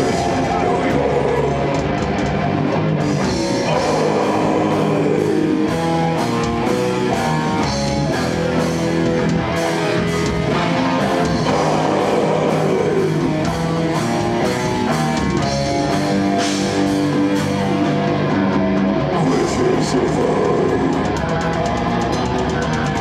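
Metal band playing live: heavily distorted electric guitars and bass over a drum kit, with vocals shouted into the microphone.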